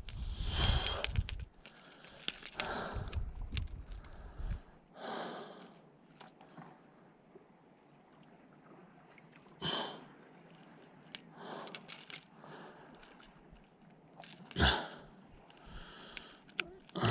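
Scattered short handling noises while a hooked bass is brought in and landed, with wind rumbling on the microphone for the first few seconds.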